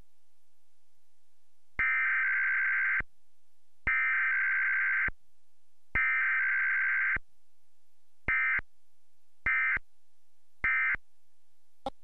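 Emergency Alert System Required Weekly Test data tones. Three harsh, buzzy digital bursts of about a second each, evenly spaced (the SAME header), are followed by three short blips (the end-of-message code). A faint steady tone sits underneath throughout.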